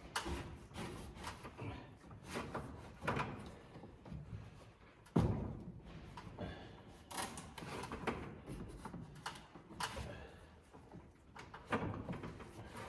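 Irregular knocks and thumps from hands-on building work, with a sharp bang about five seconds in as the loudest.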